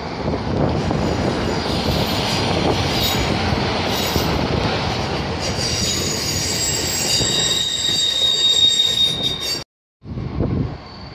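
Colas Rail Class 70 diesel locomotive passing close by with its engine running, and high-pitched wheel squeal setting in about halfway through as it rounds the curve. The sound cuts off abruptly near the end, and quieter station background follows.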